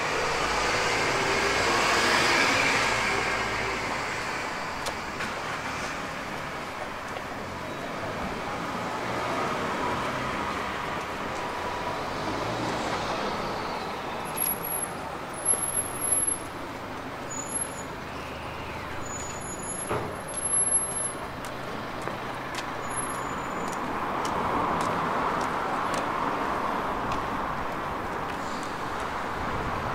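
Road traffic on a town street: a steady wash of vehicles, with passes swelling near the start and again near the end. A run of short, very high chirps comes about halfway through.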